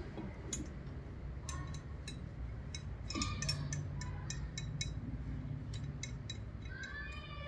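Scattered light metallic clicks and clinks as a cast lube oil cooler housing and its bolts are handled and positioned against a diesel engine block, over a steady low hum.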